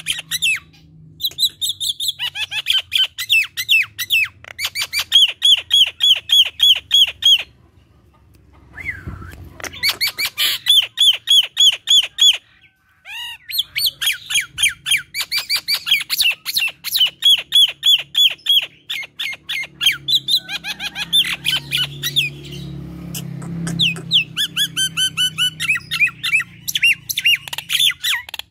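Common myna singing in full chatter: long runs of rapid, squawky repeated notes, several a second, broken by two short pauses.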